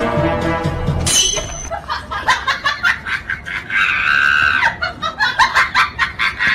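People laughing and snickering in short, rapid bursts, with a shrill scream-like voice.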